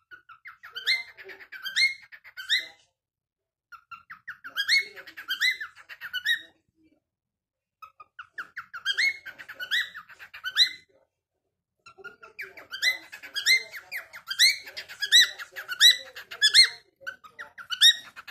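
Cockatiel singing: short rising whistled notes, about two a second, in four phrases with brief pauses between them.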